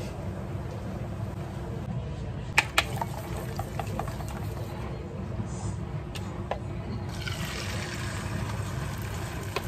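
Under a steady low kitchen hum, a couple of sharp clacks come a few seconds in. From about seven seconds in, beaten egg poured into a hot oiled frying pan starts sizzling, spreading thin for an omelette.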